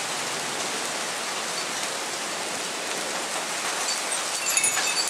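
Hail and heavy rain falling steadily, an even hiss. About four and a half seconds in, a wind chime starts ringing with clear high tones.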